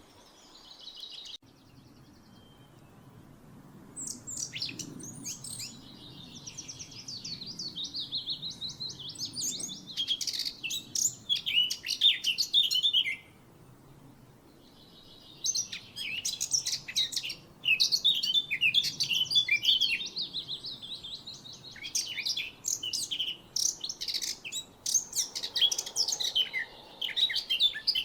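A songbird singing long, fast runs of rapid, varied high notes in two long bouts, the first starting about four seconds in and the second after a pause of about two seconds near the middle.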